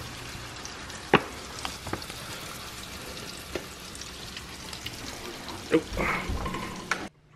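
White fish fillets sizzling in hot oil in a frying pan, a steady hiss with a few sharp clicks and knocks from the cooking, the loudest about a second in.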